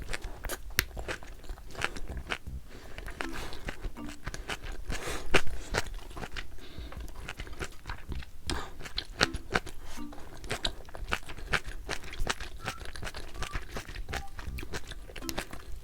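Close-miked mouth sounds of someone eating braised kimchi: wet chewing with many small crunches and clicks, over soft background music.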